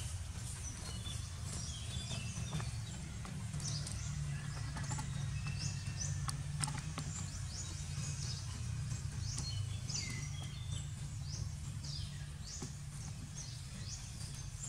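Birds chirping with many short, high, falling calls, over a steady low rumble.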